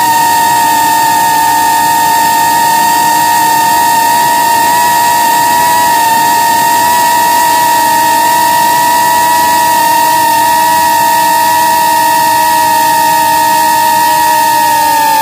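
Electric motors and propellers of a small remote-controlled aircraft, heard from its onboard camera, whining steadily at a high pitch with several tones at once; one lower tone slowly drops near the end.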